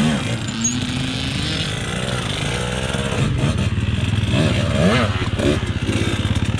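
Husqvarna TE 150 two-stroke enduro bike engine revving in short blips, the pitch rising and falling several times, with a second dirt bike running alongside.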